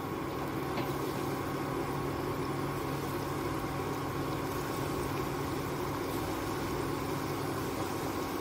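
Batter-coated chicken pieces deep-frying in hot oil in a kadhai: a steady sizzle and bubbling, with a steady low hum underneath.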